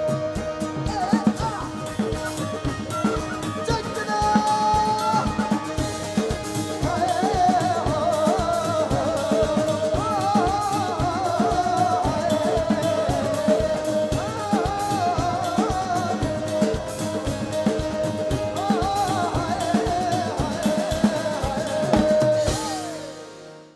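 A band playing: a drum kit keeping a steady beat under a singing voice and guitar, fading out just before the end.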